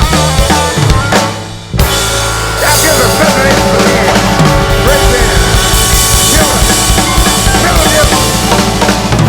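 Blues band playing, with the drum kit's bass drum and snare prominent. The music dips briefly about a second and a half in, then a fuller passage starts.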